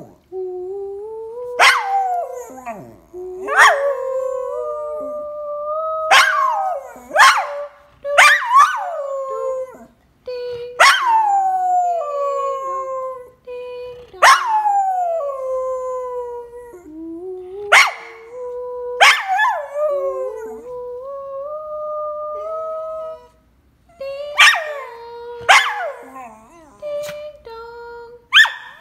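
Small shaggy dog howling along to a Christmas song, in a string of repeated howls, many starting high and sliding down in pitch.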